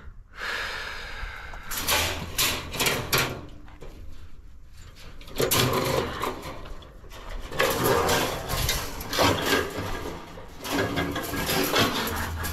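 Truck-mounted hydraulic loader crane at work: several bursts of hissing and clattering, each a second or two long, over a steady low engine hum.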